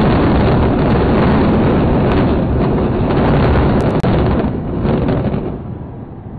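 Loud, steady rumble of two high-rise towers collapsing in an explosive demolition, dying away about five seconds in.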